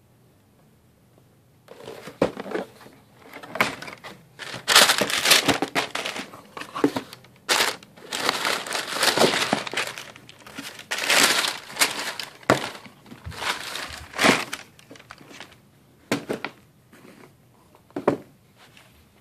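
Paper shoe wrapping crinkling and rustling as it is handled and pulled back inside an opened cardboard shoebox. The crinkling starts about two seconds in, comes in irregular bursts, and thins to a few short rustles near the end.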